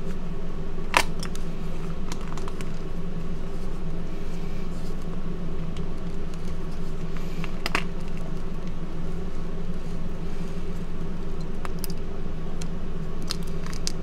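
Hands squeezing and crumbling blocks of gym chalk, with a few sharp crunches and snaps, about a second in, around the middle and several near the end. A steady low hum runs underneath.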